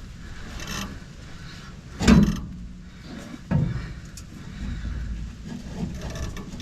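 Two metallic clunks, a loud one about two seconds in and a smaller one a second and a half later, as a steel exhaust pipe knocks against the underside of the ute while it is forced over the cross member. Wind rumble on the microphone runs underneath.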